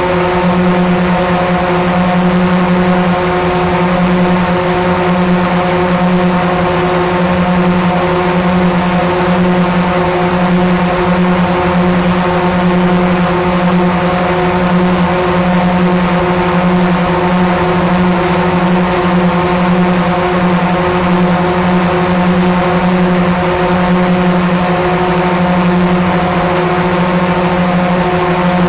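DJI Mavic 2 Pro quadcopter's four motors and propellers in flight, heard from a camera mounted on the drone itself. They make a loud, steady hum at one even pitch with a layer of rushing noise, unchanged throughout.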